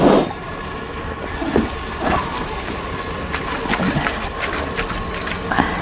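Light knocks and clinks of steel cooking utensils at a wood-fired clay chulha, over a steady rushing background of the burning fire. One knock comes at the start, a couple more around the middle, and one near the end.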